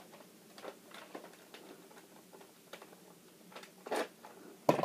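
Plastic clicks and rattles from a Nerf Tri-Strike foam blaster being handled, with two sharper clicks near the end.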